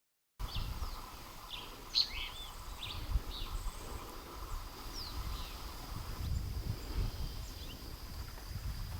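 Outdoor forest ambience starting about half a second in: birds giving a scatter of short chirps and calls over a steady high insect drone and a low, uneven rumble.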